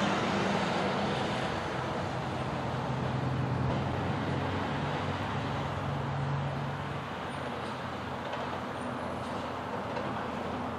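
Front-loader garbage truck's diesel engine running steadily as the truck drives slowly up to a dumpster.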